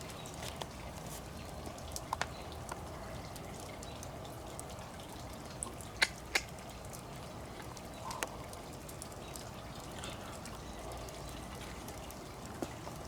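Wood campfire crackling softly, with a few sharp pops scattered through.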